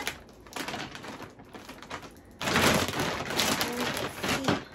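Plastic vacuum storage bag crinkling while its zip seal clicks shut under pressing fingers. The crinkling grows loud about halfway through.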